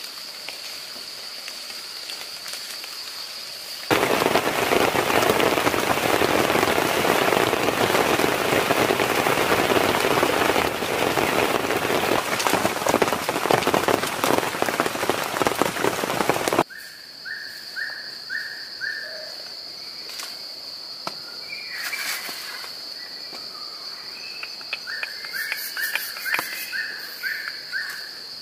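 Tropical forest ambience: a steady high insect drone, cut about four seconds in by heavy rain, a loud even downpour. The downpour stops abruptly after about twelve seconds, and the insect drone returns with scattered drips and two short runs of rapid chirping calls, the second near the end.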